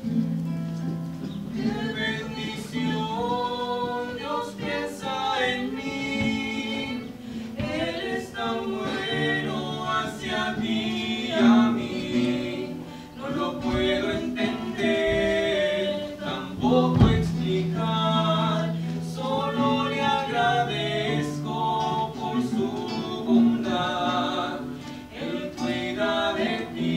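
Live singing of a worship song with acoustic guitar accompaniment, the voice carrying a continuous melody over sustained low notes.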